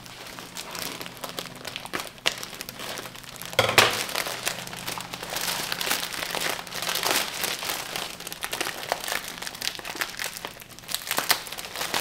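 Bouquet wrapping crinkling and rustling as flower bouquets are handled and unwrapped, a run of small crackles with a louder crackle about four seconds in.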